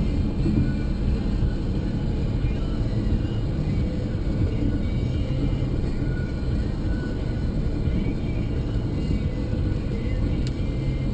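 Steady road and engine noise of a car driving on a highway, heard from inside the cabin, with a radio playing faintly underneath.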